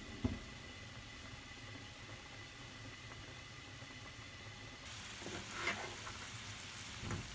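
Faint steady background with a thin high tone and one knock just after the start. About five seconds in, a hiss and bubbling set in as hard-frozen pork slices go into boiling water in a frying pan, with scattered clicks and knocks.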